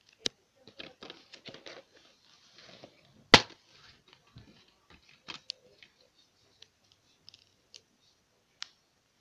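Plastic DVD case being handled and opened: rustling and scraping clicks, one sharp loud snap a little over three seconds in, then scattered light clicks of the plastic.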